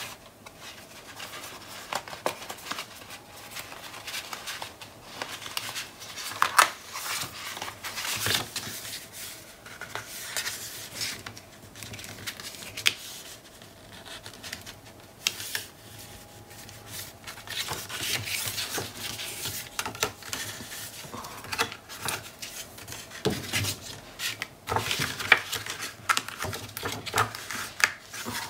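Cardstock and patterned paper being handled on a cutting mat: irregular rustles, rubs and light taps as paper flaps are slid into place and pressed down by hand.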